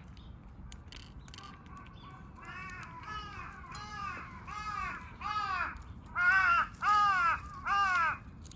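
A crow cawing in a long, evenly paced series of about ten calls that grow steadily louder, the last three the loudest.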